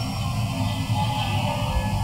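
A man chanting Quran recitation in a slow, melodic style, holding a long drawn-out note.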